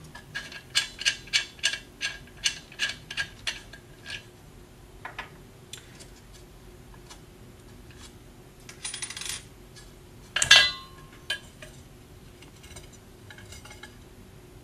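Small metal clicks, about three to four a second, as the threaded metal nut on the UV lamp's end cap is turned loose by hand. A brief scrape follows, then a sharp metallic clink with a short ring about ten and a half seconds in, from the metal nut coming down on the table.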